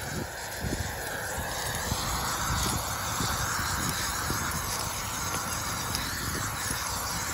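Pioneer aerosol field-marking paint spraying in a steady hiss as a circle line is painted, with a low rumble underneath.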